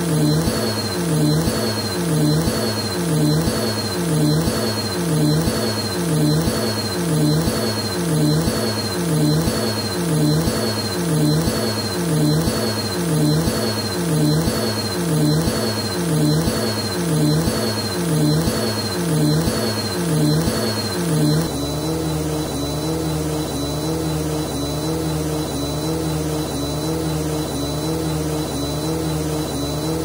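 Bissell upright vacuum cleaner running over a shag rug, its motor pitch rising and falling about three times every two seconds with fast forward-and-back strokes. About two-thirds of the way in the rhythm stops and it runs steadily.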